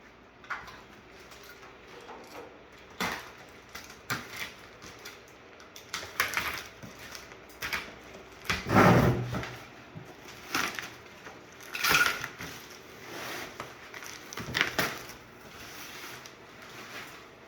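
Scattered knocks, scrapes and rustles of a large cardboard box being handled and shifted, with a heavier thump about nine seconds in.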